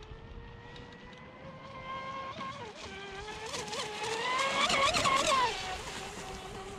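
Electric RC speedboat (Pro Boat Sonicwake 36 with a Leopard 4074 1800kv brushless motor) running flat out, its high motor-and-prop whine growing louder as it comes closer. The pitch wavers, and splashing spray peaks about five seconds in before the whine drops back. It runs smooth.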